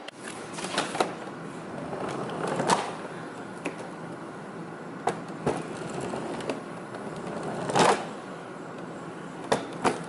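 Hoover Concept One upright vacuum running as it is pushed from carpet onto a hardwood floor, with a steady rushing noise and several sharp knocks and clatters from its wheels and head crossing the floor, the loudest about eight seconds in.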